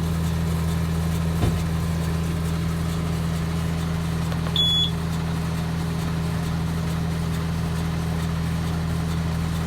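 Tractor engine running steadily, heard from inside the cab, with one short electronic beep from the baler's control box about halfway through.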